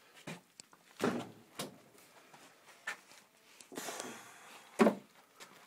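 Outdoor furniture being wrestled out of a basement: scattered knocks and bumps, a short scrape about four seconds in, and a louder bang near the end as the piece gets stuck.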